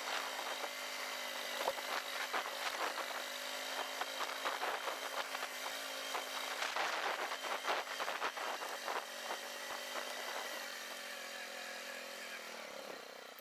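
Vehicle engine running steadily as it bounces over rough ground, with rattles and knocks throughout. It slows and quietens near the end.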